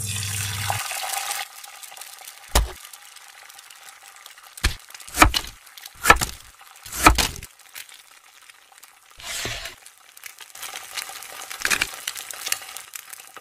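A second or so of scraping, hissing noise, then a cleaver chopping through a block of slime onto a wooden cutting board: five sharp chops over about five seconds. Softer crackling follows near the end.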